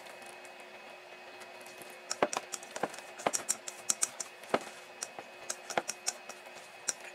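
Long cooking chopsticks knocking against a stainless steel bowl while mixing mayonnaise-dressed spaghetti salad: irregular sharp clicks, several a second, starting about two seconds in.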